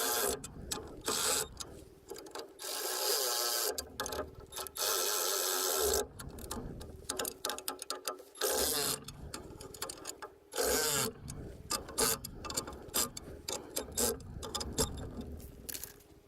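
Ratchet wrench clicking in repeated bursts as 10mm nuts are run down and snugged on a skid-plate mount, with short pauses between nuts.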